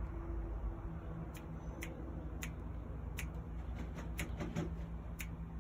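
About ten light, sharp clicks at irregular intervals, starting about a second in, over a steady low hum.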